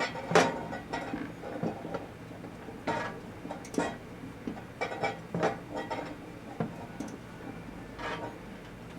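Microwave oven running with a steady hum, with irregular sharp clicks and ticks from the 400-watt high-pressure sodium bulb heating inside it.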